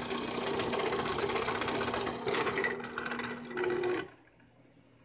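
Drill press running and boring into a part clamped in a bench vise: a steady motor hum under a scraping, grinding cutting noise. It cuts off abruptly about four seconds in, leaving near silence.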